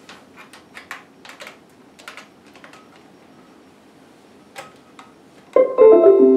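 Typing on an Acer Aspire 3 laptop keyboard: a quick run of key clicks for about three seconds, then a lone click. Near the end a loud plucked-string chord of several notes rings out as music starts.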